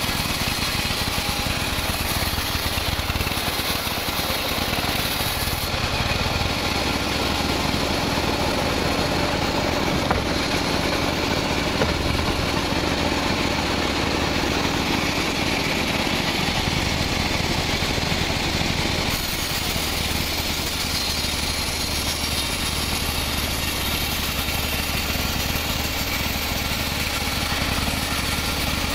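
Sawmill saw running steadily and cutting a slab of teak, a constant machine drone under the hiss of the blade in the wood.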